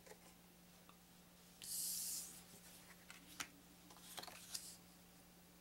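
Stiff cardboard game cards being handled on a wooden table: a brief sliding swish about two seconds in, then a few light taps and clicks as the cards are picked up and set down.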